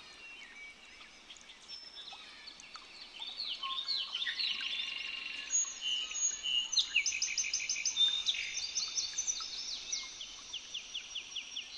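Several birds calling and singing at once: overlapping high chirps, whistles and rapid trills, sparse at first and filling in after a few seconds.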